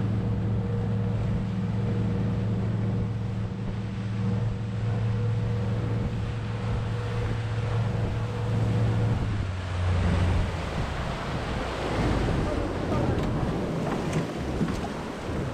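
Fishing boat's engine running at speed under a rush of water spraying past the hull. About ten seconds in, the steady engine hum drops away, leaving the sound of water splashing and wind.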